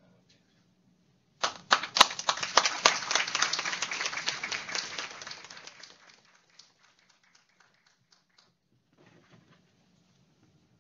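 A small audience applauding: the clapping starts abruptly about a second and a half in, holds for about four seconds, then thins out to a few scattered claps.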